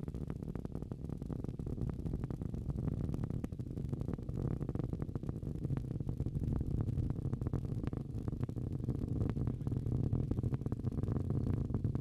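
Falcon 9 first stage's nine Merlin engines heard as a steady low rumble with continual crackling as the rocket climbs through max Q.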